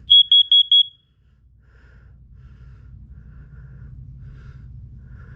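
Carbon monoxide alarm sounding on test: a group of four quick, loud, high-pitched beeps in the first second. This four-beep pattern is the standard CO alarm signal. A faint low rumble fills the pause that follows.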